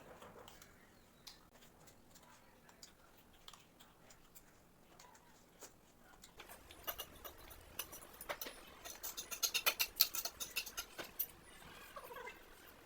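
Close-miked crunching and chewing of crispy food: scattered crisp crackles at first, then a quick run of loud crunches from about six to eleven seconds in.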